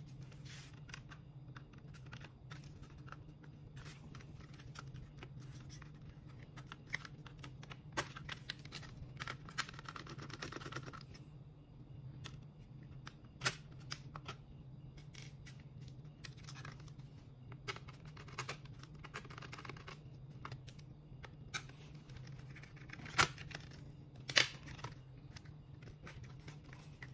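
Small clicks, ticks and scrapes of a small screwdriver and fingers working on a laptop's motherboard, screws and connectors, with a rustling stretch about ten seconds in and a few sharper clicks, the loudest two near the end. A steady low hum runs underneath.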